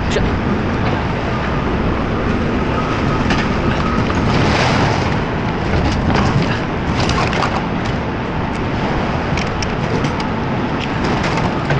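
Steady rumble of a truck engine running, with scraping, knocking and clattering as junk slides out of a raised dump trailer bed.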